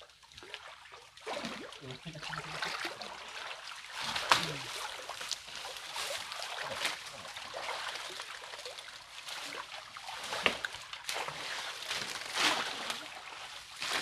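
Water sloshing and splashing around several people wading waist-deep, with many short splashes and the crackle of dry palm fronds being pulled out of a brush pile in the water.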